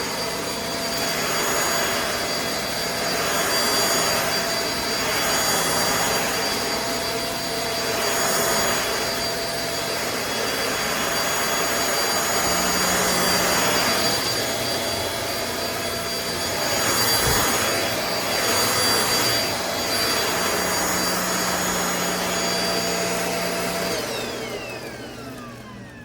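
NADALY cordless stick vacuum running with a steady motor whine that swells and fades about every two seconds. Near the end it is switched off and the whine falls in pitch as the motor winds down.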